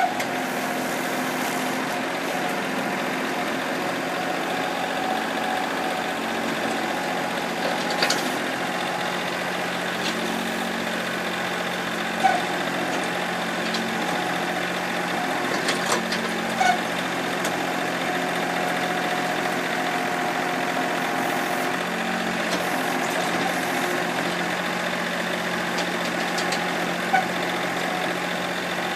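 Honda compact tractor's engine running at a steady speed while it works its backhoe in hard-packed clay, with a few short, sharp knocks over the top.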